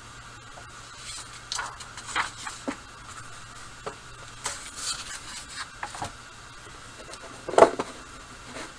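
Irregular rustling and knocking handling noises, several short scrapes and taps, the loudest about three-quarters of the way through, over a faint steady background hum.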